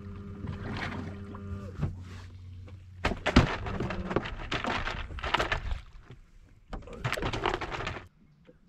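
Knocks and scuffing on a bass boat's deck over a steady low hum, with one sharp knock about three seconds in as the loudest. The sound cuts off suddenly near the end.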